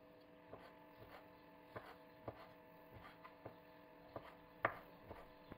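Kitchen knife slicing apricot halves on a wooden cutting board: faint, irregular taps of the blade on the board, roughly one or two a second, over a low steady hum.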